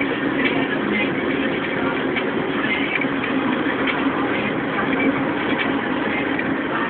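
Street traffic with the steady running of heavy vehicle engines, such as buses, idling and moving in congested traffic.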